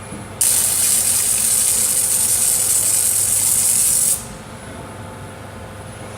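Robot welding machine's arc running as one steady hiss that starts abruptly about half a second in and cuts off about four seconds in, over a low steady machine hum.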